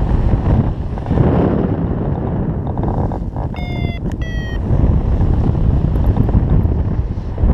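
Wind rushing over the microphone of a paraglider in flight, a loud steady buffeting rumble. About halfway through, a brief run of short electronic beeps from a flight variometer sounds over it.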